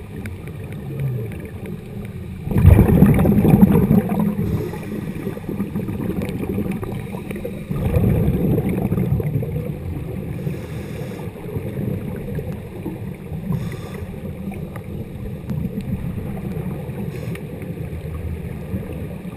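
Muffled underwater rumble and bubbling of scuba divers' exhaled regulator bubbles, heard through a GoPro's waterproof housing. There are louder surges of bubbling about two and a half seconds in and again around eight seconds.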